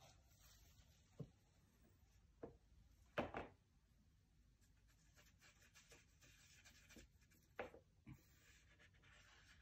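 Paintbrush strokes on a stretched canvas: faint, scratchy rubbing with several short soft knocks, the loudest about three seconds in.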